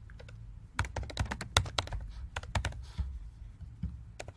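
Typing on a computer keyboard: a run of irregular key clicks, becoming loud and quick about a second in.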